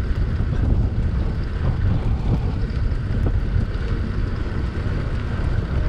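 Wind buffeting the microphone: a steady low rumble with no clear tones.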